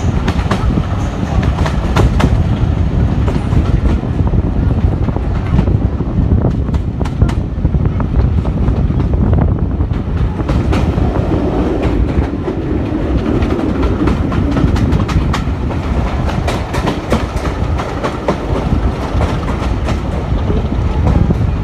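A railway train running along the track: a steady low rumble with many sharp clicks of the wheels over the rail joints.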